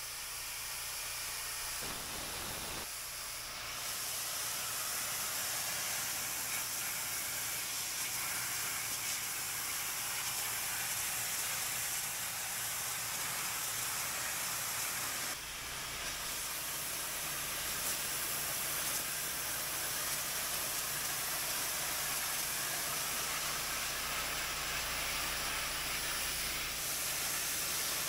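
Pressure washer spraying a water jet: a steady hiss over a low machine hum, shifting abruptly about three and fifteen seconds in.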